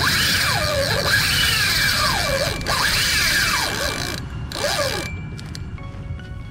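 Drag of a Penn spinning reel buzzing as a hooked fish strips line, in repeated surges whose pitch rises and falls with the line's speed: the fish is running against the drag.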